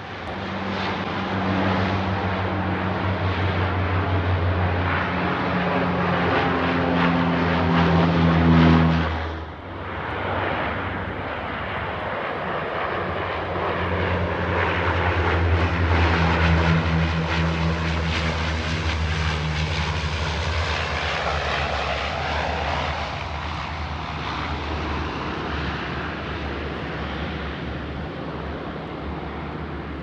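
Firefighting water bomber's propeller engines running loud and steady as the plane skims the lake scooping water, the engine pitch shifting a little. The sound drops briefly about nine seconds in, then returns and slowly fades.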